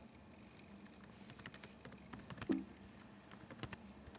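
Keys clicking on a computer keyboard in short bursts as a short command is typed, with one louder keystroke about halfway through.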